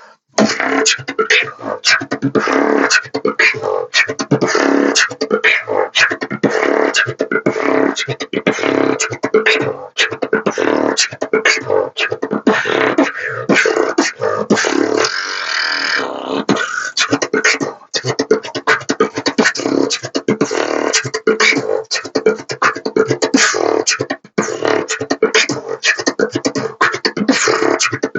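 Beatboxing: a fast, continuous run of mouth-percussion hits, with a longer held hiss about halfway through, recorded through the built-in microphone of Sony XM4 headphones, which cuts off the highest frequencies.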